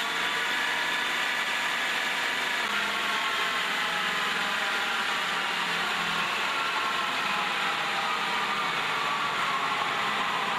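Automatic copy-turning wood lathe running with a steady mechanical whir, its several tones drifting slowly in pitch.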